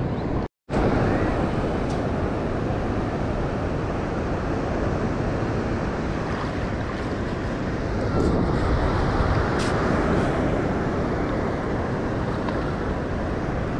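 Steady wind buffeting the microphone over the wash of surf on a sandy beach, with a brief silent gap about half a second in.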